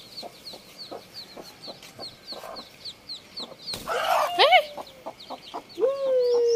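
Newly hatched chicks peeping steadily, about four peeps a second. About four seconds in, a broody hen defending them flies at a young goat with a burst of wing-flapping and rising squawks. A long, slightly falling cry follows near the end.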